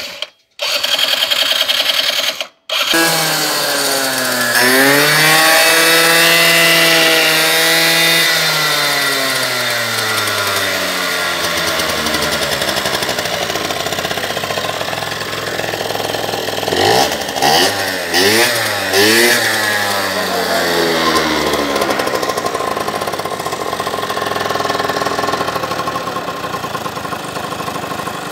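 Small scooter engine revved up about three seconds in and held high for several seconds, then dropping back to a steady idle. A few quick throttle blips come a little past the middle, then it idles again.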